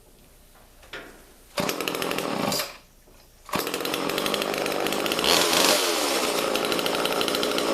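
1985 Homelite XL two-stroke chainsaw engine running in bursts: it catches suddenly, dies out after about a second, catches again and runs on, with some revving partway through.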